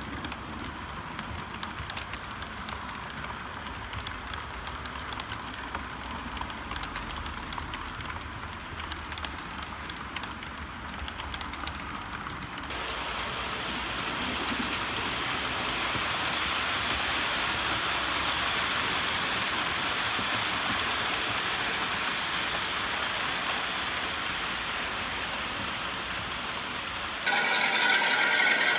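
Model trains running on a layout: a steady hiss of wheels and motors on the track, with faint clicks as the wheels cross rail joints and points. The noise grows louder and fuller about 13 seconds in, and changes again to a louder rushing sound near the end.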